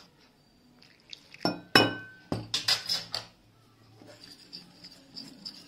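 A metal spoon clinking and scraping against a ceramic bowl while stirring flour and water into a coating batter. There are a few sharp clinks about a second and a half in, the loudest ringing briefly, then a quick run of clicks that fades to soft scraping.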